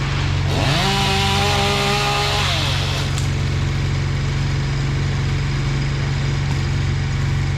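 Chainsaw engine running steadily, revved up about half a second in, held high for about two seconds, then let back down.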